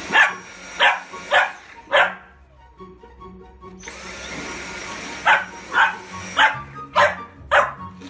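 A boxer puppy barking at a cordless stick vacuum: four sharp barks, a pause, then five more. The vacuum's high motor whine cuts out just after two seconds and spins back up about four seconds in.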